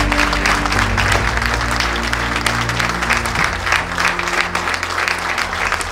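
A large audience applauding continuously, with background music of sustained low notes underneath.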